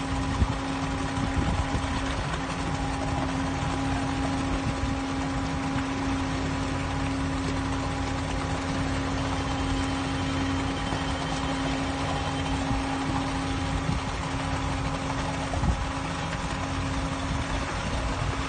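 A 14-ton excavator's diesel engine running steadily with a constant hum. A brief knock comes just after the start and another near the end.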